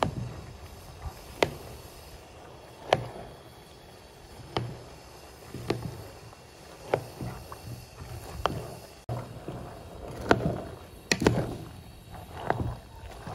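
A wooden spoon stirring a large metal pot full of pomegranate seeds. The spoon knocks sharply against the pot about every second and a half, and the seeds swish between the knocks.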